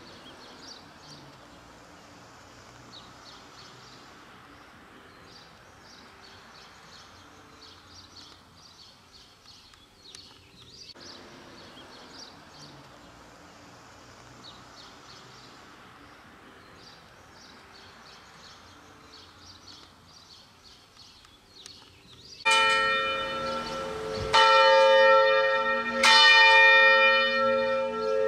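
A single church bell in the steeple swinging and ringing, its strikes coming about every two seconds and each ringing on. It starts near the end, after a long stretch of quiet outdoor background.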